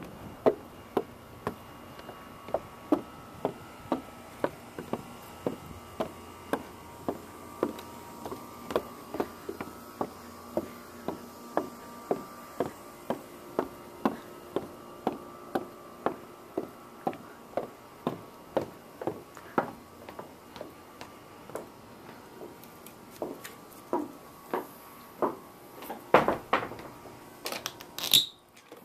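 Footsteps on wooden boardwalk and deck boards at a steady walking pace, about one and a half hollow knocks a second. A couple of louder knocks and a brief rattle come near the end.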